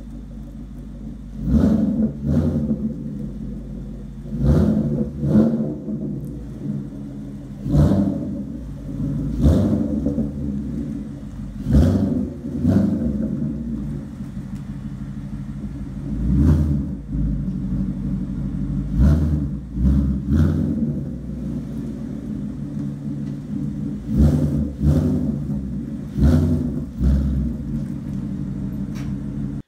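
S550 Mustang GT's 5.0 V8 through Borla S-type axle-back mufflers with the resonators deleted, idling with a steady low rumble and blipped up in short throttle revs, about fifteen times, often in pairs.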